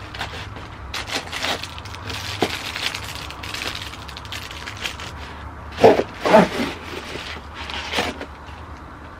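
Bag and packaging rustling and crinkling as a tripod is unpacked by hand, with a couple of louder bumps about six seconds in.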